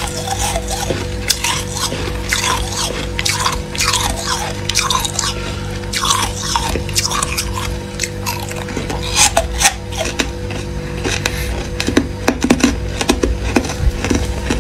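Freezer frost being crunched: a run of crisp, irregular crunches over a steady low hum.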